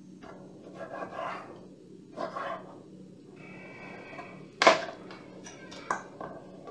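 Kitchen knife cutting thin bone-in pork chops on a wooden cutting board: a few rasping sawing strokes, then a loud sharp knock about halfway through and a smaller one near the end.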